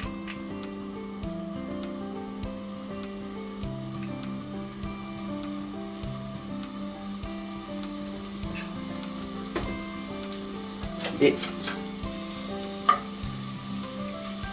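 Julienned ginger and garlic sizzling in a little hot oil in a pot over a gas flame while being stirred. Near the end the spatula and chopsticks knock sharply against the pot a few times.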